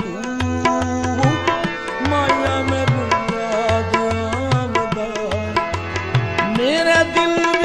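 Background music in South Asian style: a steady tabla beat under a gliding string melody.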